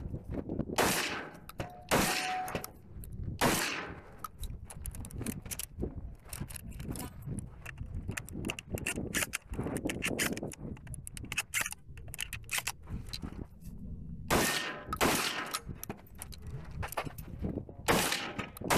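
Benelli M4 12-gauge semi-automatic shotgun firing: three loud shots a second or so apart, then about ten seconds of small clicks and knocks while the shotgun is reloaded, then several more shots near the end.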